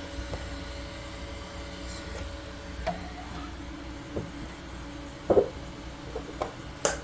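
A few light clicks and knocks of small plastic 3D-printed parts being handled and set down, the loudest a quick double knock about five seconds in, over a steady low hum.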